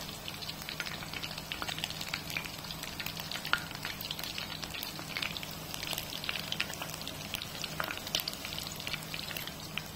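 Batter-coated prawns deep-frying in hot oil: a steady crackle and fizz of many small pops, with one louder pop about three and a half seconds in.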